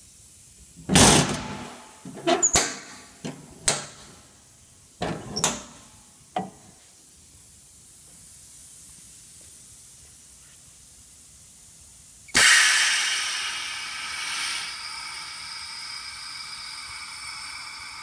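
Sharp metal clanks and knocks, about six in the first six and a half seconds, as the lid clamp of a Krantz 120 cm extractor is swung shut and locked by hand. About twelve seconds in, a sudden loud hiss starts and slowly fades, with a faint steady whine under it.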